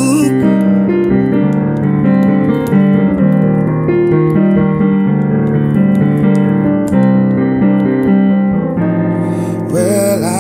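Piano music: an instrumental passage of held chords with no voice, and singing comes back in near the end.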